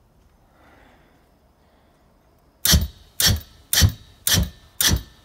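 Propane flame poofer firing: five short, loud bursts about half a second apart, starting about two and a half seconds in. Each one is full-pressure propane released by the solenoid and shot out the cannon tube, lit by the pilot flame.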